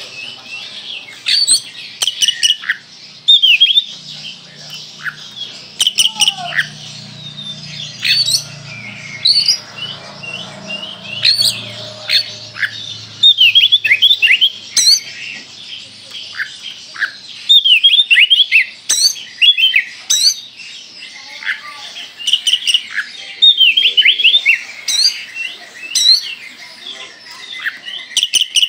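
Oriental magpie-robin (Kalimantan kacer) singing at full voice: quick runs of sharp, loud whistled notes that slur steeply down, packed with the punchy 'tembakan' burst phrases, in clusters with short pauses between.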